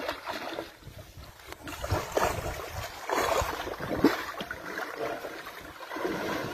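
A baby elephant splashing and thrashing in shallow river water, slapping the water with its trunk: irregular splashes and sloshing, the loudest about four seconds in.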